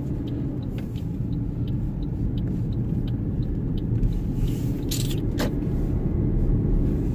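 Car cabin road noise: a steady low rumble from the engine and tyres while driving, with faint ticking about twice a second and a single sharp click a little after five seconds in.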